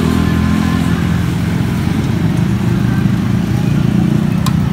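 Busy street traffic, vehicle engines running steadily with a low rumble, and a single sharp click near the end.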